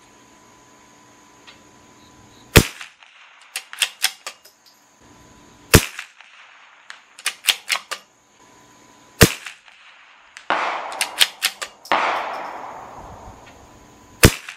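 CZ 457 bolt-action .22 LR rifle firing subsonic Norma Tac-22 ammunition: four sharp shots a few seconds apart, the last after a longer gap. Quieter clicks and knocks come between the shots.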